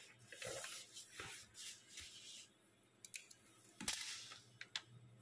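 Faint rustling, then a few short sharp clicks, several close together from about three seconds in.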